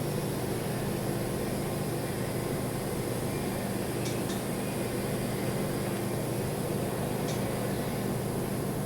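Steady machine hum over a hiss, with two faint clicks about four and seven seconds in.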